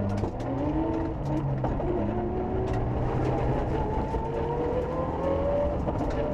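Mitsubishi Lancer Evolution rally car's turbocharged four-cylinder engine at speed, heard from inside the cabin, its note climbing and dropping several times as the driver works through the gears. Scattered sharp ticks sound over it.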